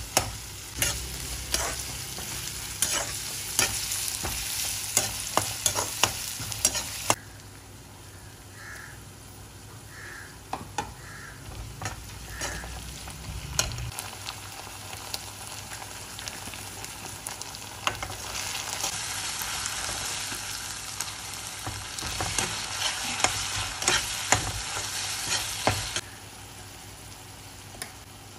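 Onions, green chillies and garlic sizzling in hot oil in a wok, with a metal slotted spoon clinking and scraping against the pan as it stirs. The sizzle drops abruptly after about seven seconds and comes back louder later on.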